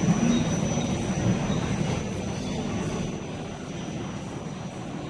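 Low, steady rumble of passing vehicles that fades over the first three seconds, with a faint high steady tone running through it.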